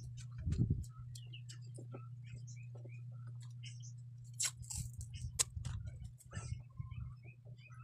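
Handling of speaker wires and a roll of masking tape: scattered small clicks and ticks, with a short rasp of tape pulled from the roll about halfway through, over a steady low hum.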